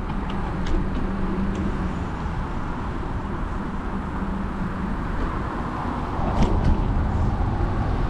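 Wind rushing over the microphone of a camera on a moving bicycle, a steady low rumble of noise while riding along a paved path, with a few light clicks.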